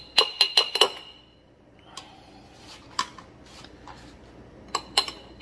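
Metal spoon clinking against a tin can and a glass mason jar while scooping canned corn. There is a quick run of ringing clinks in the first second, a couple of single taps, and another run near the end.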